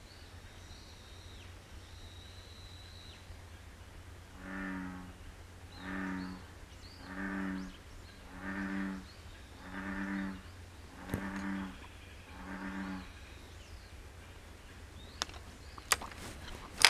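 An American bullfrog calling: seven low, even notes in a steady series, about one every second and a half.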